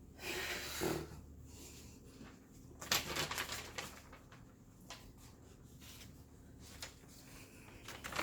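Rustling and crinkling of a rolled diamond-painting canvas being handled to flatten it, in short bursts: about a second at the start and again around three seconds in, with a few light taps between.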